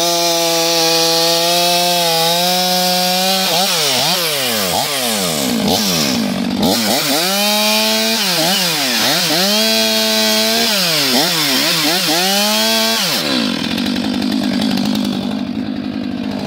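Stihl MS 500i fuel-injected chainsaw held steady at high revs, then revved up and down rapidly over and over, its pitch dipping and snapping back quickly, which shows its fast throttle response. Near the end it settles into a lower, noisier steady run.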